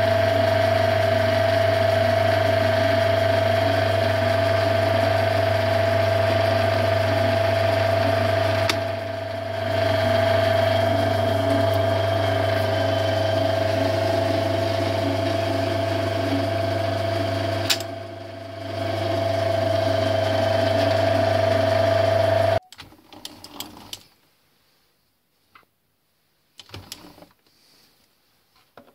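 Metal lathe running with a steady hum and whine, dipping briefly twice, then cutting off suddenly about two-thirds of the way through. A few faint clicks of metal parts being handled follow.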